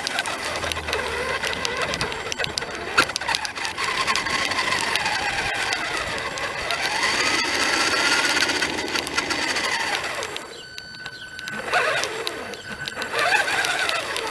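RC car's motor whining, its pitch rising and falling as the car speeds up and slows down, with many small clicks over it. The sound dips briefly about ten seconds in.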